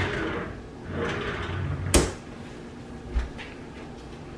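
A kitchen drawer being opened and shut while a pot holder is fetched: sliding and rustling, a sharp knock about two seconds in (the loudest sound), then a dull thump about a second later.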